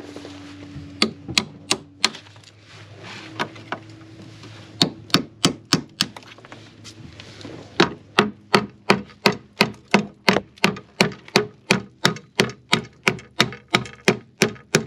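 Hammer blows, metal on metal, on an old bolt in a rusty steel knee bracket. A few scattered strikes come first, then from about halfway a steady run of about three a second.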